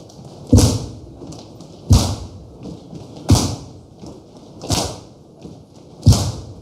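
Slow rhythmic clapping in unison, five claps about a second and a half apart, each ringing briefly in the hall.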